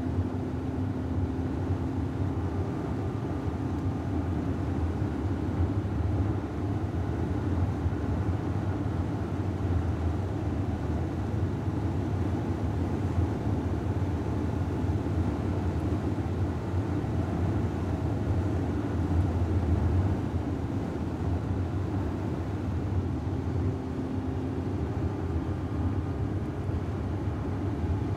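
Steady low drone of a car cabin on the move: engine and tyre-on-road noise with no sudden events.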